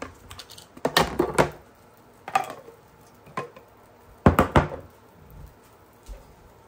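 Knocks and clatter of a plastic food container being handled and set down. There are a few clusters of sharp knocks, the loudest just past four seconds in.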